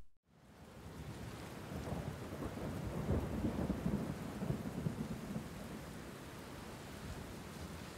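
Steady rain with a low rumble of thunder, fading in just after a moment of silence and loudest about three seconds in.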